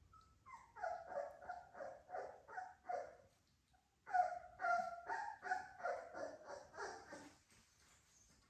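Three-week-old American Bully puppy yapping in two runs of quick repeated calls, about three a second, with a short pause between the runs.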